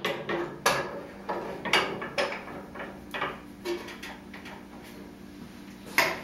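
A bar clamp being adjusted and tightened down on a metal straight edge over a wooden panel: scattered clicks and knocks of metal and wood, roughly one a second, with a louder knock near the end.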